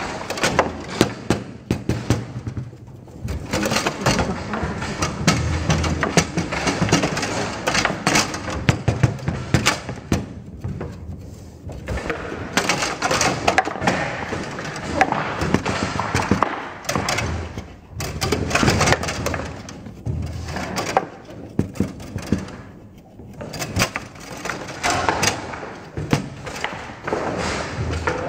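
Foosball table in play: the ball cracking against the players' figures and the table walls, with rods clacking and sliding, in quick irregular strikes broken by a few brief lulls.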